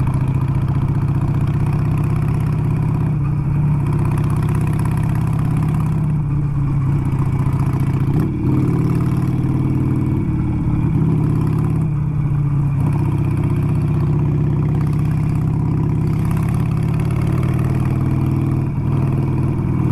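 Harley-Davidson V-twin motorcycle engine running steadily at riding speed on a dirt road, heard from the rider's seat, with a few small changes in throttle along the way.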